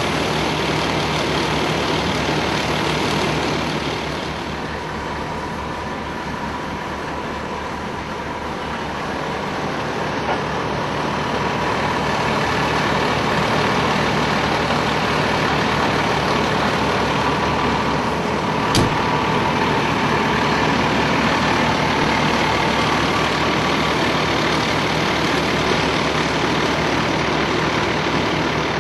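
Fire engine's diesel engine running steadily at idle, with one sharp click about two-thirds of the way through.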